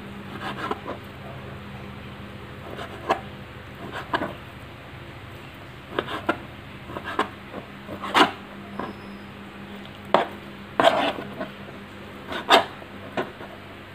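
Kitchen knife cutting raw chicken breast into cubes on a plastic cutting board: irregular knocks of the blade striking the board, about a dozen of them, over a steady low hum.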